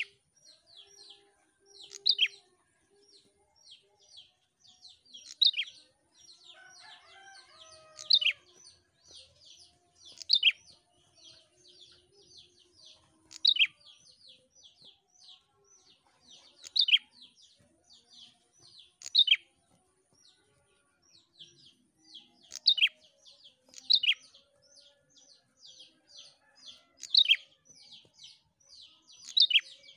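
Prenjak singing in full voice ('gacor'): a fast, unbroken string of short, sharp chirps that drop in pitch, with a louder accented note every two to three seconds.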